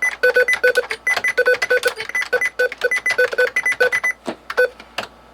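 Keyboard keys pressed in quick succession, each press giving a click and a short electronic beep, several a second, with the beeps alternating between two pitches. After about four seconds the presses thin out to a few scattered clicks and beeps.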